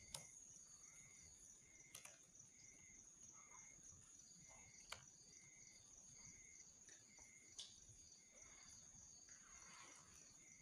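Faint campfire crackle: four sharp pops spread over several seconds, over a steady high insect drone and a short chirping call that repeats a little over once a second.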